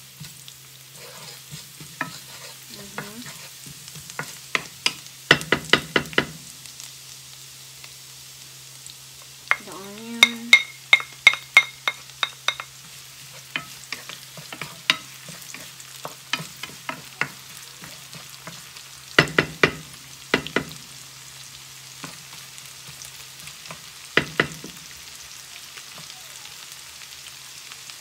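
Minced garlic and onion sizzling in rendered ground-pork fat in a nonstick skillet, stirred with a wooden spoon that clacks against the pan in several short runs of taps. A steady low hum runs underneath.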